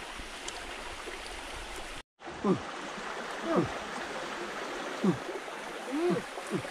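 Steady rush of a forest stream, broken by a brief dropout to silence about two seconds in. Over it come several short wordless voice sounds, each a quick sweep in pitch, mostly falling.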